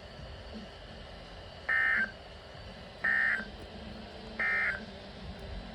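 Three short, buzzy electronic data bursts about a second apart, the EAS/SAME digital end-of-message signal of a NOAA Weather Radio broadcast, marking the end of the warning. A low steady radio hiss lies between them.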